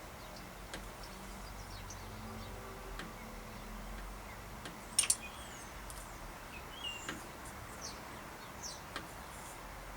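A few light clicks and taps from hands and tools working on a bicycle's front derailleur, the loudest a quick pair about halfway through. Faint short high chirps sound over a quiet background.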